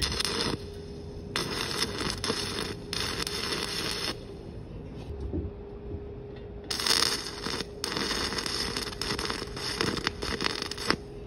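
Stick-welding arc from a 7018 3/32-inch electrode at about 60 amps, burning in about five bursts of half a second to three seconds with short stops between. The arc is struck and released over and over to tack thin 16-gauge sheet onto thicker angle iron without blowing holes through it.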